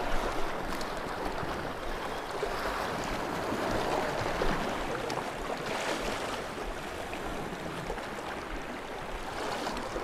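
Sea water washing and lapping against rocks at the waterline, a steady wash with small swells rising and falling.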